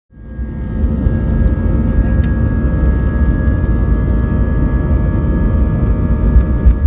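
Airbus A320 jet engines heard from inside the cabin: a heavy, steady rumble with a constant whine of several fixed tones above it, rising in quickly from silence at the start.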